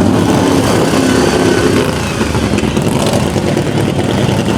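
Racing lawn mower engine running loud and close, easing slightly about two seconds in.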